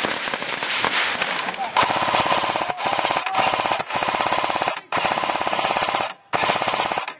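Airsoft M60-style electric machine gun firing five long full-auto bursts, each about a second long: a rapid, evenly spaced mechanical rattle with brief pauses between bursts.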